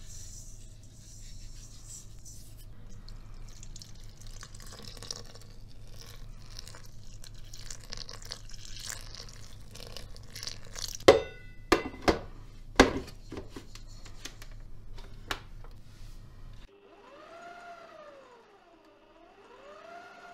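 Warm milk and water poured from a small pot into a stainless steel bowl of flour and yeast, followed by a few sharp metallic clanks as the steel bowl is fitted onto a stand mixer. Near the end a wavering whine rises and falls.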